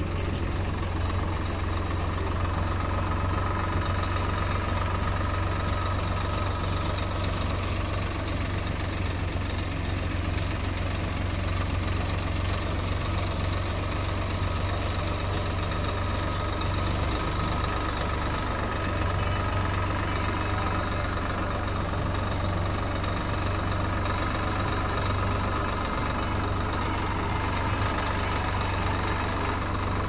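Diesel tractor engine running steadily, heard close up from the driver's seat, with a constant low hum.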